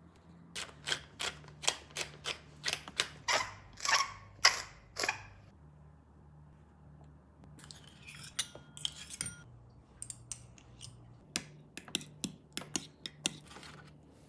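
Sharp, regular strikes on a cutting board, about two a second, as raw pork is prepared. A run of about ten strikes is followed by a short rustling, then a second run of strikes.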